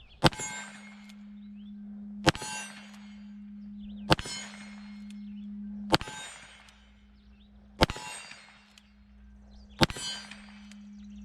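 Six shots from a Ruger Blackhawk Bisley single-action revolver in .45 Colt, fired one at a time about two seconds apart. Each shot is followed by a short metallic ring.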